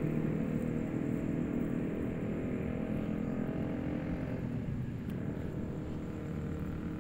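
Steady low rumble of distant city traffic, easing slightly about halfway through.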